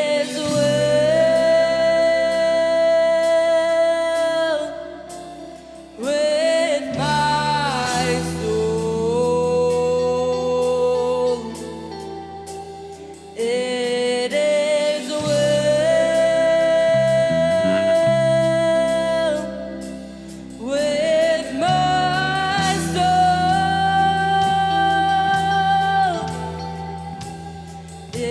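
Slow worship music: a melody sung in long held notes over a steady, sustained bass, in phrases of about six or seven seconds each.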